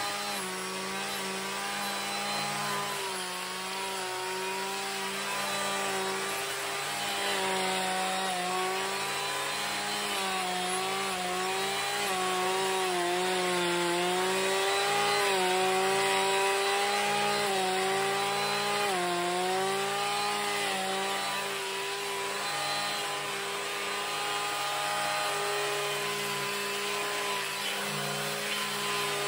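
Husqvarna 545RX clearing saw's two-stroke engine running at working speed as its blade cuts through thick giant hogweed stalks, the engine note dipping in pitch a few times.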